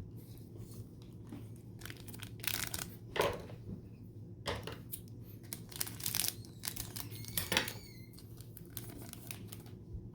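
Trading-card pack wrapper crinkling and being torn open, in several short rustling bursts.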